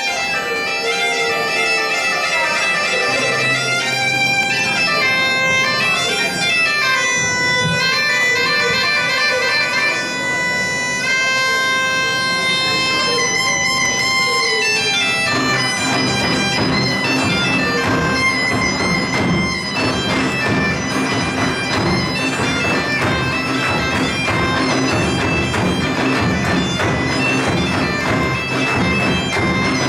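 Portuguese gaita de foles (bagpipe) playing a lively melody with trills over its drone, alone at first. About halfway through, a rope-tensioned side drum and a large bass drum join in under the pipe.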